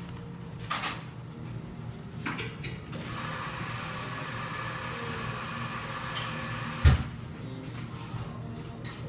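Coffee shop interior ambience: a steady low hum with a few scattered knocks and clatters, the loudest a low thump about seven seconds in, and a stretch of steadier higher-pitched noise for a few seconds before it.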